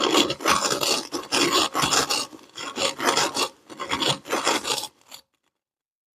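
Kinetic sand being crushed and pushed through a meat grinder: a gritty, rasping crunch in uneven pulses that stops suddenly about five seconds in.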